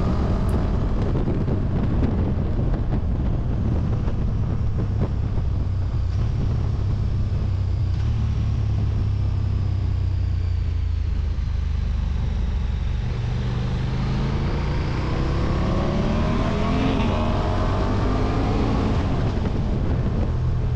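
KTM 1290 Super Duke R's V-twin engine running on a gentle warm-up lap of a race circuit, heard from on board over a heavy low rumble. From about 14 seconds in, its pitch climbs as the bike accelerates.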